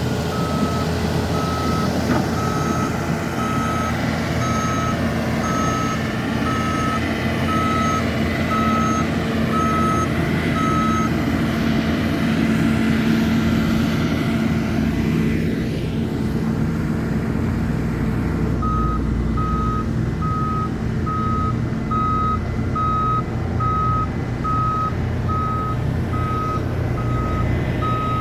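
Diesel engines of mini loaders (skid steers) running steadily while a reversing alarm beeps evenly, about one and a half beeps a second. The beeping stops about 11 seconds in and starts again around 19 seconds.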